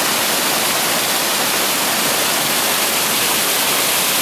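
Small cascading waterfall rushing steadily, carrying more water than usual.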